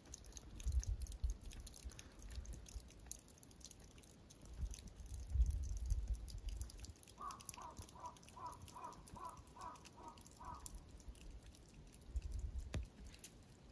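A bird calls a quick run of about eight short, harsh notes, evenly spaced over three seconds or so, partway through. Under it are muffled low thumps and faint crisp clicks from walking on snow, heaviest near the start, in the middle and near the end.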